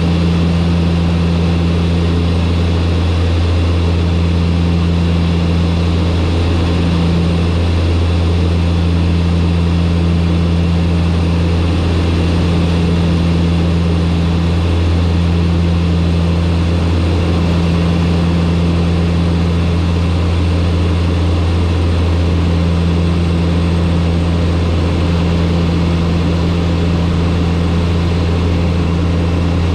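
Turboprop aircraft's engines and propellers running steadily on final approach: a loud, even drone with a deep low hum and a couple of steady tones above it.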